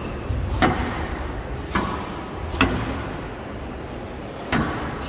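Squash rally on a glass court: the ball smacked by rackets and off the walls, four sharp cracks about a second apart with a longer gap before the last, over steady background noise.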